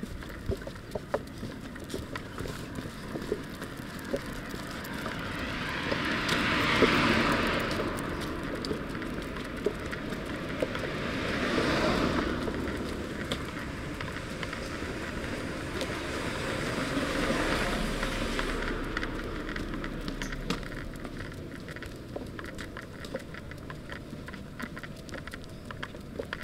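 Three vehicles pass one after another on the road, each swelling and fading over a few seconds. Under them runs a steady light pattering of a small dog's trotting steps on asphalt.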